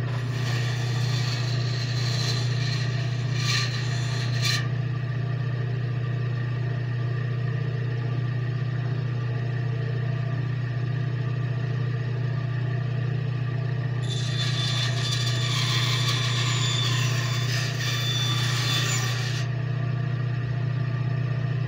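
Bandsaw running with a steady motor hum, its blade cutting into wood in two stretches: about four seconds near the start and about five seconds near the end.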